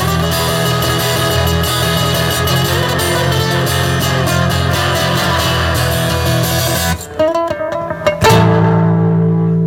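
Two acoustic guitars played live as a duo with dense, rhythmic strumming. About seven seconds in the playing breaks into a few sparse plucked notes, then a final chord is struck and left to ring.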